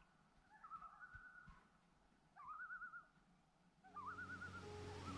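Common loons giving their wavering tremolo call, three quavering phrases each opening with a short rising note. A low steady hum comes in near the end.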